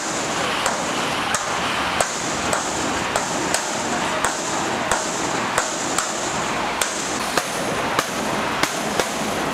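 A stick repeatedly banging on a detention centre's gate, sharp even knocks about one and a half a second, over steady background noise.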